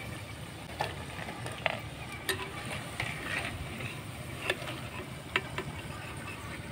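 Spinach pakoras sizzling as they deep-fry in oil in a clay karahi, with a metal spoon stirring them and clicking against the clay pot several times.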